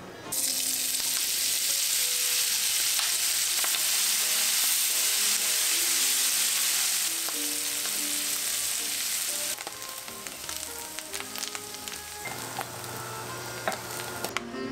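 Chickpeas going into hot oil in a frying pan, the oil sizzling loudly at once as they hit it; after about nine seconds the sizzle drops to a quieter fry with scattered clicks, and near the end crispy chickpeas are tipped from the pan into a glass bowl. Soft background music plays underneath.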